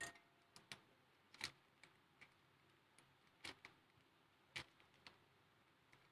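Faint, irregular clicks and crinkles of a plastic chocolate bar wrapper being handled and lowered into a steel bowl, about a dozen in all, the sharpest near the start and around the middle.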